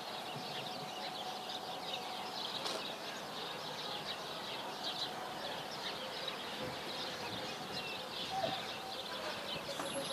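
Many small birds chirping busily and continuously, over a steady outdoor background hum.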